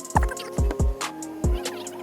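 Background music with a steady beat: kick drum, hi-hat and sustained synth or guitar tones.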